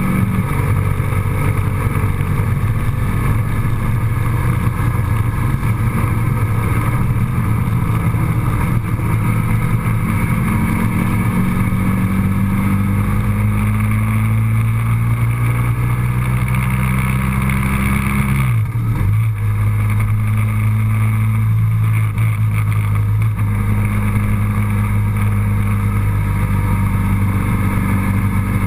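Engine of a moving road vehicle running steadily with road noise, its pitch creeping slowly upward, then breaking off briefly about eighteen seconds in before settling at a steady pitch.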